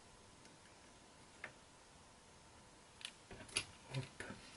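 Faint clicks and taps of small plastic model-kit parts being handled and fitted: a single click about a second and a half in, then a quick cluster of several taps near the end.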